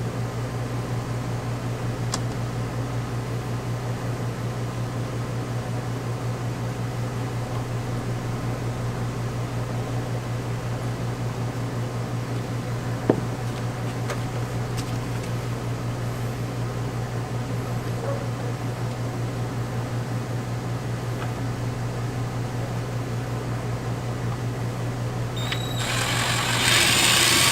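A steady low mechanical hum runs throughout. About 26 seconds in, a power drill starts, louder, boring a pilot hole for a screw, and runs for a few seconds.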